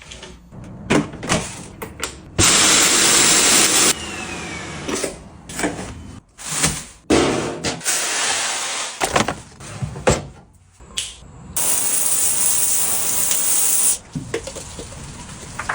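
Household cleaning sounds: a string of knocks, clacks and handling noises, with two bursts of rushing, hissing noise of about one and a half to two and a half seconds each, the first about two seconds in and the second near the end.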